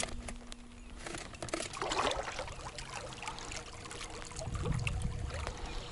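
Water trickling and splashing around a small boat moving under an electric outboard motor. A faint steady motor whine comes in about halfway through.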